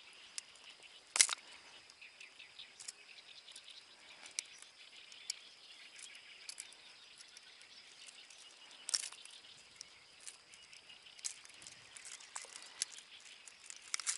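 Quiet outdoor ambience with scattered small clicks and knocks from handling a landed bass and its gripper. Two sharper knocks stand out, about a second in and again about nine seconds in.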